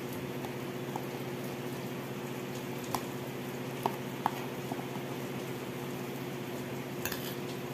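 Steady rain on a corrugated roof over a constant low hum, with a few light clicks of a metal spoon against a plastic food container about three to four seconds in.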